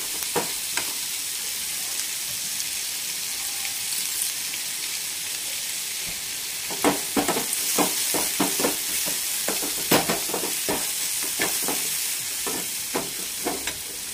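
Chopped onions and green chillies sizzling in hot oil as they are sautéed in a metal kadai, with the scraping and clinking of a perforated metal ladle stirring them against the pan, the stirring strokes coming thick and fast in the second half.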